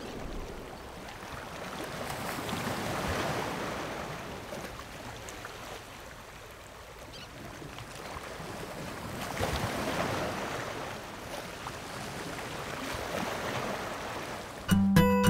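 Sea waves washing in, a steady rush that swells and eases every few seconds. Just before the end a plucked-string tune starts, louder than the surf.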